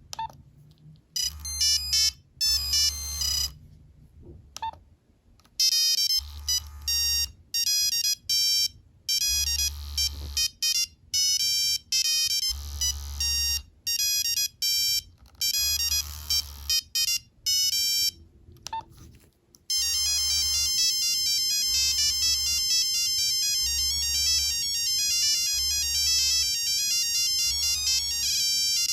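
Nokia 3390 monophonic ringtones playing one after another: simple beeping melodies of single notes, with short breaks about five seconds in and near two-thirds through, the last tune a fast, unbroken run of notes. A low buzz pulses on and off underneath about every two seconds.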